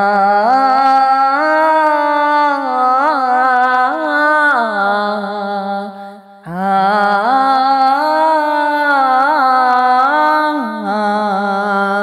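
Wordless vocal interlude in a naat: a voice holding long, ornamented notes with slides between them. The same phrase is sung twice, with a brief break about six seconds in.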